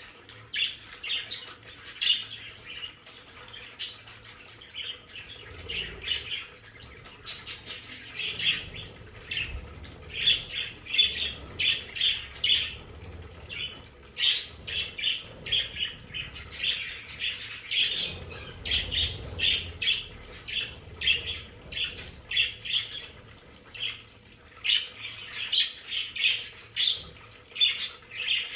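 A flock of budgerigars chattering continuously: many short, rapid chirps and squawks overlapping.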